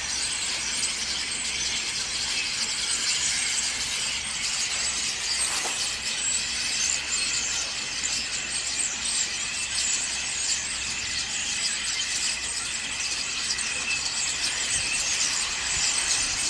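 A large flock of common starlings chattering together: a steady, dense mass of clicking and rattling calls.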